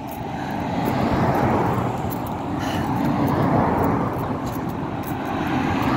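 Road traffic going by: a steady rush of car noise that swells slowly and eases off.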